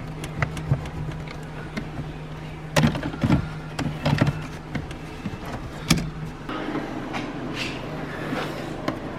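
Clicks and knocks of hands and tools working on a car's plastic dashboard and its fittings, the louder knocks about three, four and six seconds in, over a steady low hum that stops about six and a half seconds in.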